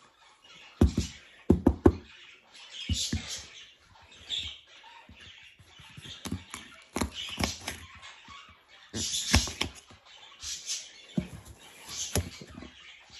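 Scattered clicks and knocks of a small knife cutting the seeds out of an orange bell pepper, and of food being handled on a counter.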